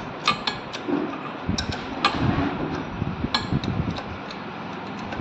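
Irregular light metal clicks and clinks of hand tools and fittings as a carburetor is fitted to the motorcycle engine's intake manifold, over low handling noise.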